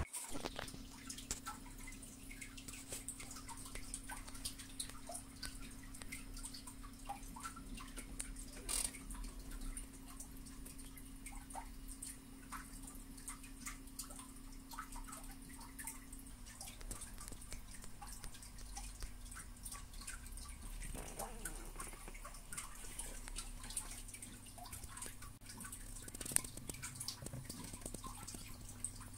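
Quiet room tone: a steady low hum with many faint, scattered small ticks and clicks.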